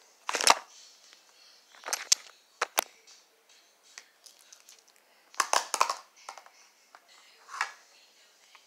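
Clear glitter slime squished and squeezed by hand, giving short crackling squishes and pops: about five bursts, the loudest about half a second in, a cluster around the middle and a smaller one near the end.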